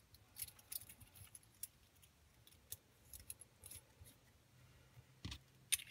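Faint clicks and light scraping of the small metal parts of a Rose V2-S vaping tank atomizer being handled and fitted together, with one dull knock about five seconds in.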